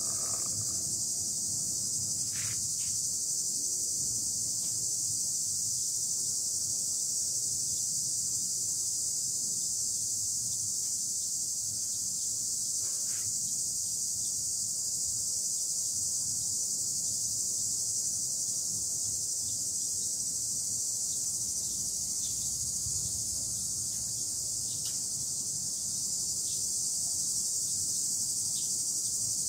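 Steady, continuous high-pitched insect chorus, with a few faint short clicks now and then.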